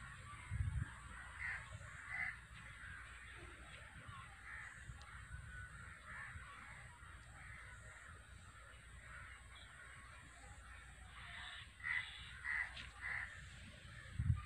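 Crows cawing: two caws about a second and a half in, then three more in quick succession near the end. Low bumps of the camera being handled come about half a second in and again just before the end.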